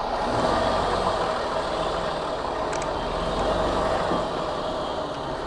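Diesel engine of a semi-truck running steadily at low speed as the truck moves slowly forward, with a constant hum over a low rumble.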